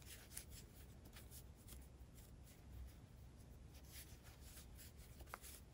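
Near silence with faint, scattered soft rustles and light ticks: chunky yarn being worked with a crochet hook, single crochet stitches.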